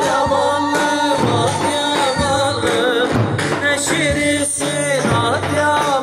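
Live Turkish folk dance music: an ornamented melody line that wavers and slides in pitch, over percussion hits.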